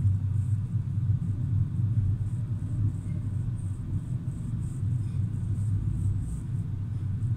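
Passenger coach of an intercity train rolling slowly along the track, heard from inside: a steady low rumble from the wheels and running gear, with faint regular ticking high above it.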